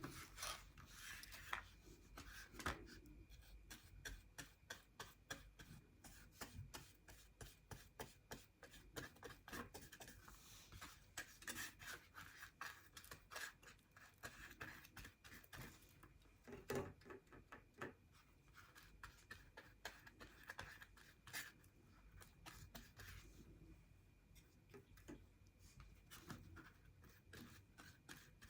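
Faint, irregular strokes of a paintbrush rubbing paint onto cardboard, with an occasional louder scrape or tap.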